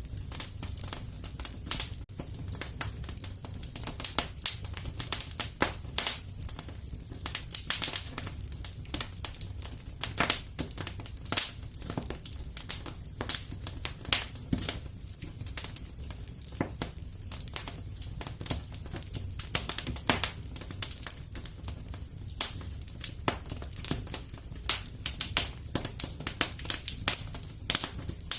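Wood fire crackling in a fireplace: dense, irregular snaps and pops over a steady low rumble of the flames.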